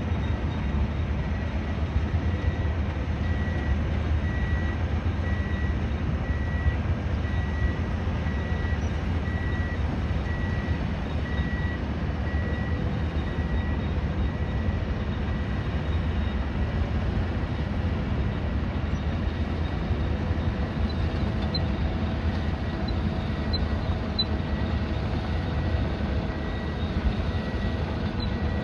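Steady low rumble of an urban construction site and passing traffic, with a short high beep repeating about once a second through the first half.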